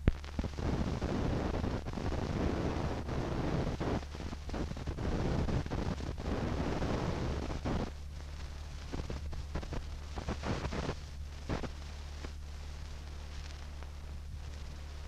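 Rough, crackling rumble like wind buffeting a microphone, loud for the first half and then thinning to scattered crackles, over a steady low hum.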